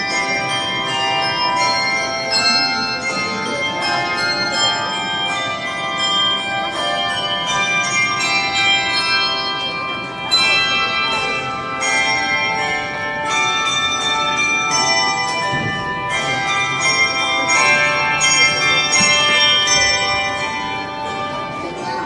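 Handbell choir playing a piece: many handbells rung in turn, with overlapping ringing tones and new strikes coming thick and fast throughout.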